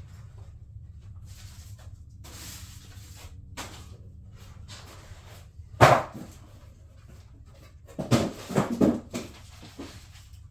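A dog barking: one bark about halfway through, then a quick run of four or five barks near the end.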